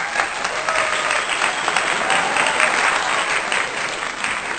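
A crowd applauding, with many dense claps running together, faint voices in the crowd, and a fade just after the end.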